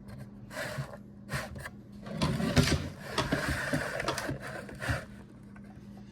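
Clicks, knocks and scraping of small metal latch parts being handled and worked by hand, busiest and loudest from about two seconds in to five seconds. A steady low hum runs underneath.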